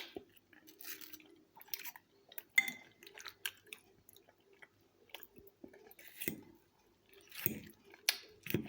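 Close-up chewing of a mouthful of fresh fruit and vegetable salad dressed with yogurt, heard as irregular, fairly quiet chews.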